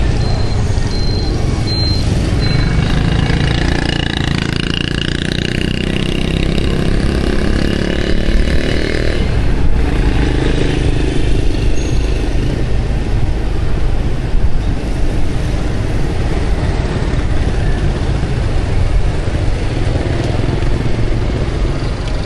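Motorbike riding through town traffic: a steady low engine rumble with other motorbikes passing close by. An engine's pitch rises and falls for several seconds a few seconds in.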